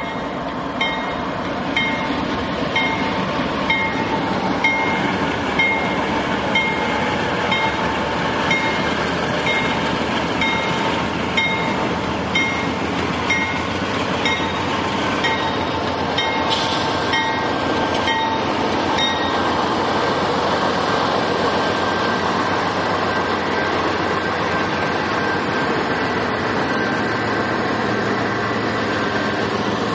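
CSX freight train with GE diesel locomotives passing close by at restricted speed, its engines running and wheels rolling on the rails. A regular high ping sounds about every second through the first half.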